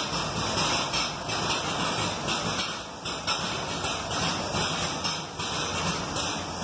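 Air-operated double-diaphragm paint pumps running, their compressed-air exhaust hissing steadily and pulsing about twice a second with each diaphragm stroke.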